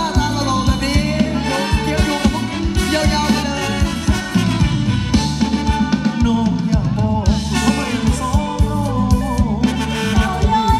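Live Thai ramwong dance-band music played loud over a PA, with a steady, even drum beat under a wavering sung melody.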